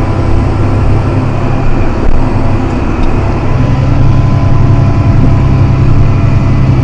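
John Deere 7280R tractor's six-cylinder diesel engine running steadily under load while pulling a plough, its low drone growing louder about halfway through.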